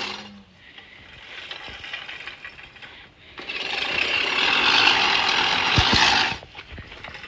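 Hand-pushed reel lawn mower, its cylinder blades freshly sharpened, whirring as the spinning reel cuts grass. The sound is fainter at first and gets louder for about three seconds from roughly three and a half seconds in, then drops off.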